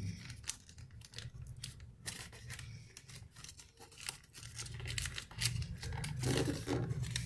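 A sheet of origami paper being folded and creased by hand: repeated crisp rustles and crackles as the flaps are folded in and the creases pressed flat, over a low steady hum.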